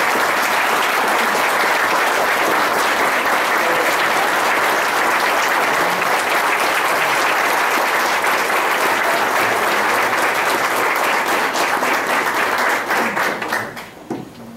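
An audience applauding, a dense continuous clapping that fades away about a second before the end.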